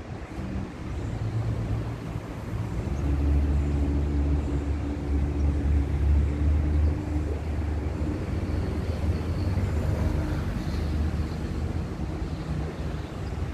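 Red Line electric commuter train approaching slowly along the station track: a low, steady hum that swells about three seconds in.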